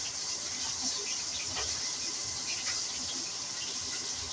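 Fish deep-frying in hot grease in a pot: a steady high sizzle with small irregular crackles and pops.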